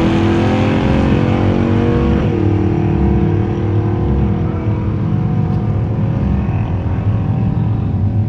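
V8 drag-racing engine at full throttle accelerating away down the strip, its pitch climbing, dropping sharply at a gear change about two seconds in, then climbing again more slowly.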